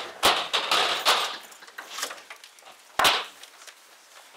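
A crowded courtroom rising and shuffling: rustling and movement noise over the first second or so, then one sharp knock about three seconds in.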